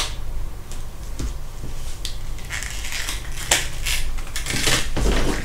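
Clear plastic packaging of laptop memory modules crinkling and clicking as it is handled, with scattered sharp clicks and stretches of crinkle.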